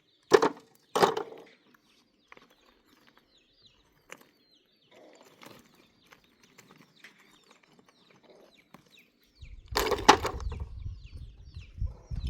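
Two sharp knocks close together, then faint small-bird chirping. About nine seconds in, a loud low rumble starts, with clattering on top.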